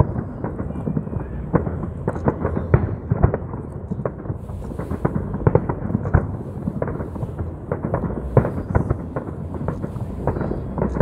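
Fireworks display: aerial shells bursting in quick, irregular succession, several sharp bangs a second over a continuous low rumble.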